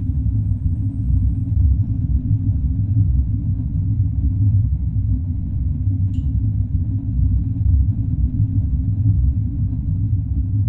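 Steady low rumble of a subway train running, with a single short click about six seconds in.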